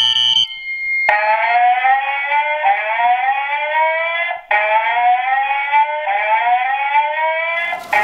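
A fire alarm horn sounds in pulses and cuts off within the first half second. Then a brief steady tone gives way to the FireCom 8500 whoop tone from a System Sensor fire alarm speaker/strobe: rising sweeps that repeat about every one and a half seconds. A rushing hiss joins near the end.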